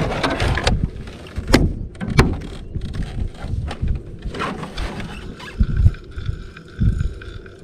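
Fishing reel being cranked to retrieve a lure, with rustling handling noise and two sharp knocks about a second and a half and two seconds in; a faint steady whine comes in past the middle.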